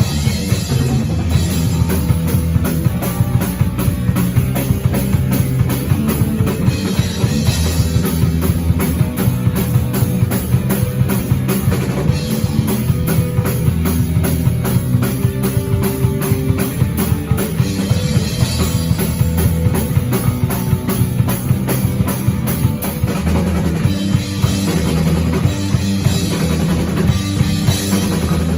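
Rock band playing an instrumental with no vocals: a drum kit keeps a fast, steady beat under electric guitar.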